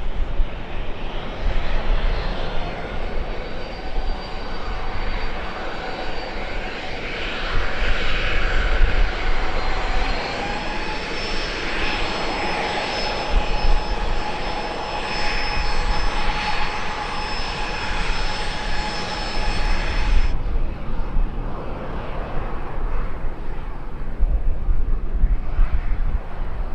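Airliner engines running with a steady whine over a loud rush and low rumble. The whine steps up slightly in pitch about ten seconds in. The sound cuts off abruptly about twenty seconds in, leaving a quieter rumble.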